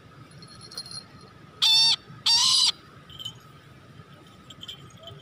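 Brahminy kite calling twice: two loud, high, drawn-out calls about half a second apart, the second a little longer than the first.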